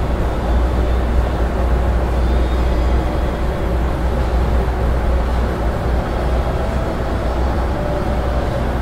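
Steady low rumble of a large indoor arena's background noise, with a faint even murmur above it and no distinct events.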